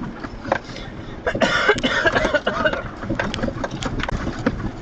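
Inside an off-road truck's cab as it bounces over a rough, rutted trail: a steady run of knocks and rattles, with a louder stretch of noise about a second and a half in.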